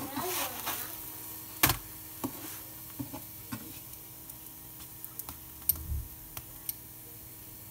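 Plastic slotted spatula knocking and tapping against a nonstick frying pan as a msemen flatbread is flipped over and pressed down: one sharp knock about a second and a half in, then scattered lighter taps.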